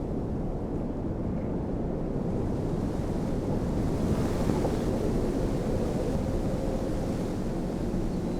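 Wind sound effect: wind blowing steadily with a deep rumble, swelling slightly about four seconds in.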